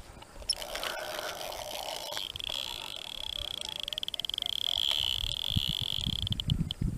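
A high-pitched, fast-pulsed trill from a calling animal at the pond. It starts about two seconds in, holds steady for some four seconds, then cuts off.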